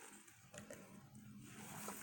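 Near silence: a faint steady low hum with a few soft clicks.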